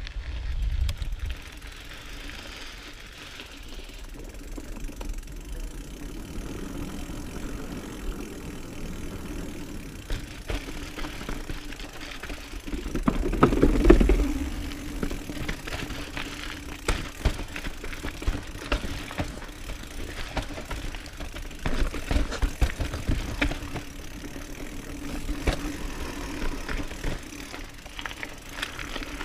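Mountain bike ridden down a dirt trail: tyres rolling over dirt with a steady hum, and the bike rattling and knocking over roots and bumps, loudest in a rough stretch about halfway.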